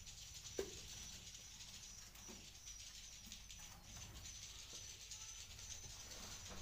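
Faint, high, continuous twittering of edible-nest swiftlets, with one short click about half a second in.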